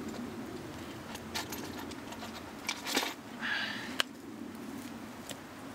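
Light metallic clinks and a short scrape as a metal camp pot and utensil are handled over campfire coals: several separate ticks, the sharpest about four seconds in, over a steady low background rush.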